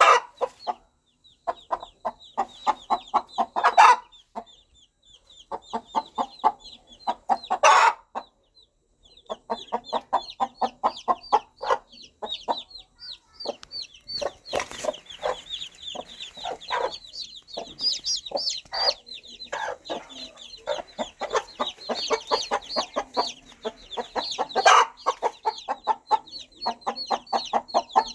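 Mother hen clucking in quick runs of short calls while her baby chicks peep high and thin throughout. A few louder hen calls stand out, about 4 and 8 seconds in and again near the end.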